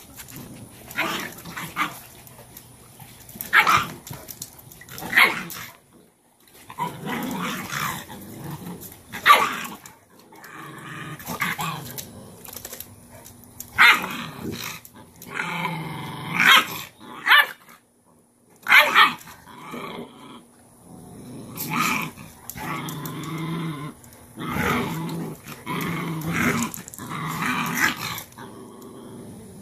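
Cane Corso mother and puppy growling, with sharp barks breaking in, in repeated bursts with short pauses: the sound of a mother dog correcting a dominant puppy.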